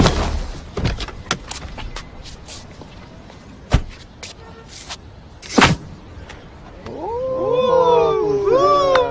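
A quick whoosh, then scattered clicks and two sharp knocks. In the last couple of seconds come high-pitched wavering cries that rise and fall.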